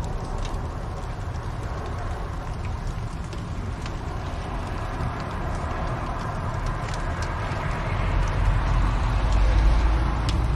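Wood fire crackling, with scattered sharp pops over a steady hiss and a low rumble that grows louder about eight seconds in.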